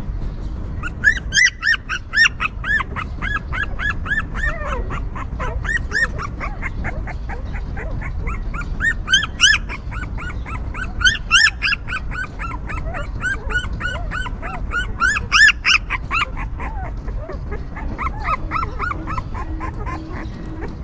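Newborn puppies whimpering and squealing: many short high cries in quick succession, coming in spells and thinning out near the end, over a steady low rumble.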